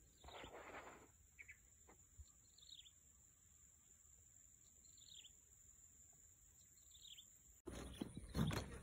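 Quiet rural ambience: a bird gives a short falling chirp every couple of seconds over a steady high-pitched tone. Near the end the sound jumps to louder rustling and handling noise.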